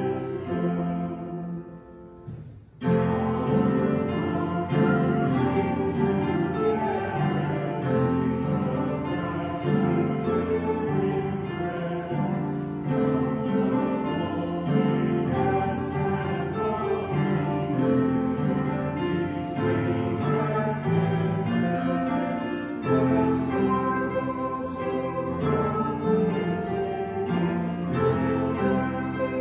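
A hymn sung by a congregation to instrumental accompaniment, in long held notes, with a short pause about two and a half seconds in before the next phrase starts.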